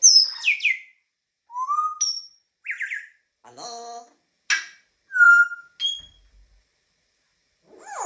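African grey parrot giving a string of short whistles, chirps and sliding calls, some rising and some falling in pitch, with brief pauses between them.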